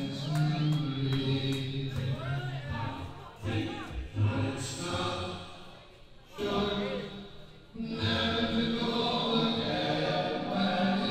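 Live anarcho-punk EBM band playing a beatless passage of long, chant-like drawn-out tones, with some sliding pitches early on. It fades out twice past the middle, then comes back fuller and steady about eight seconds in.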